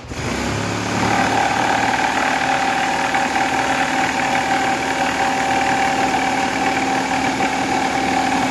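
Cordless jigsaw cutting through a plywood panel, its motor running steadily with the fast rattle of the blade strokes; a steady whine settles in about a second in.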